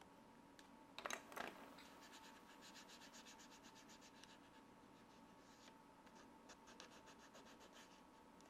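Faint scratching of a fingernail rubbing over the back of tracing paper, transferring a pencil drawing onto a rubber stamp block. A couple of louder scrapes come about a second in, followed by a long run of quick, even rubbing strokes.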